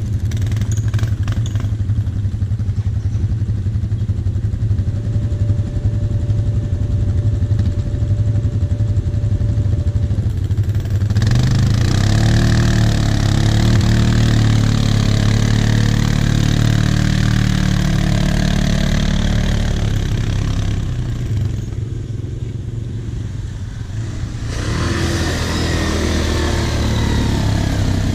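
Quad bike (ATV) engine idling steadily close by. Over it, other ATV engines rev as a quad churns through a mud hole, loudest from about eleven seconds in, easing off for a few seconds, then revving again near the end.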